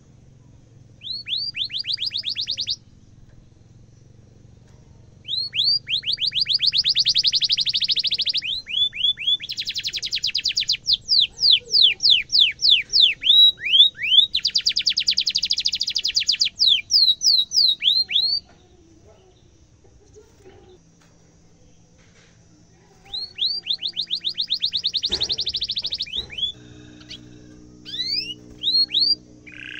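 Domestic canary singing in bursts: fast rolling trills of rapidly repeated, downward-sweeping notes alternate with separate sharp 'cuit cuit' chirps, with a pause of a few seconds in the middle. This is a canary in full song ('gacor'), the rolling kind of song used as a tutor recording for young canaries.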